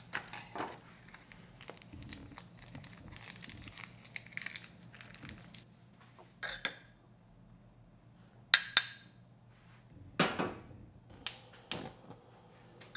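A seasoning-paste pouch crinkling as the paste is squeezed out into the broth, followed by several sharp knocks as the earthenware pot is handled and set on the gas stove's grate.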